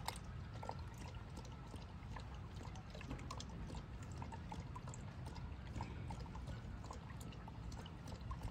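A dog lapping water from a plastic bucket: a run of small, irregular wet splashes and clicks over a low steady rumble.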